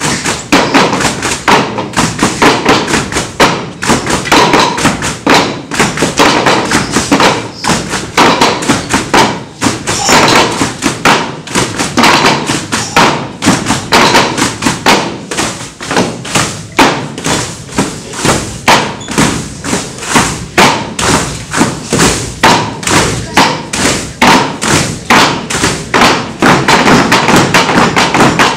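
West African drum ensemble of djembes and dunun bass drums playing a fast, dense rhythm. Near the end the strokes become a rapid, evenly spaced run.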